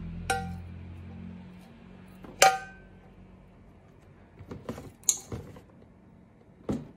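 Light aluminium Horn Kettle being handled, giving several metallic clinks and knocks. The loudest comes about two and a half seconds in and rings briefly.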